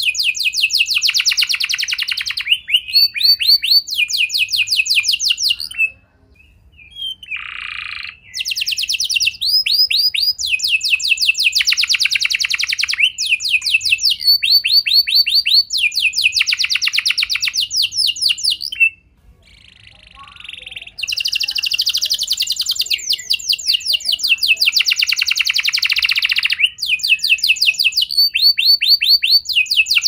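Domestic canary singing: fast trills of rapidly repeated high notes strung together in phrases of a second or two, broken by two short pauses, about six and nineteen seconds in.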